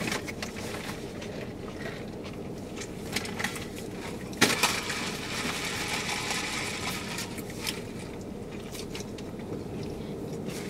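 Steady hum inside a car cabin, with scattered small clicks and rustles of eating and handling food and drink cups; one sharper click about four and a half seconds in.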